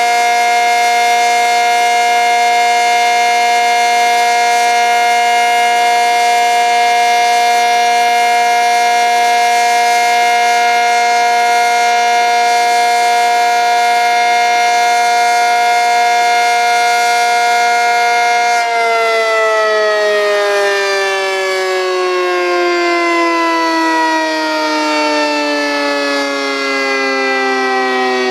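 ACA Cyclone 125 omnidirectional outdoor warning siren sounding a loud steady tone, then, about two-thirds of the way through, winding down with its pitch gliding steadily lower: the end of its three-minute steady alert signal.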